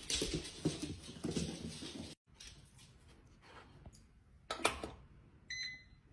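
Faint dog noises for about two seconds, then quiet. Near the end there is a short electronic beep.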